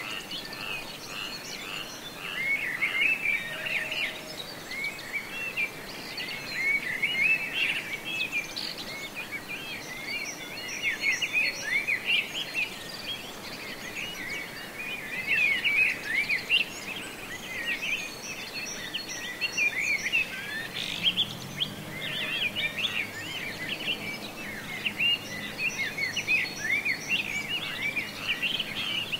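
Small songbirds chirping and twittering without a break, many short quick chirps overlapping. A faint low hum comes in about two-thirds of the way through.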